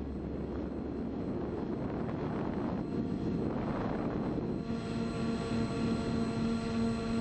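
Brushless motors and propellers of a 250-size FPV miniquad, heard through its onboard camera over rushing wind noise. The whine swells and eases with the throttle, and a steady hum sets in about four and a half seconds in.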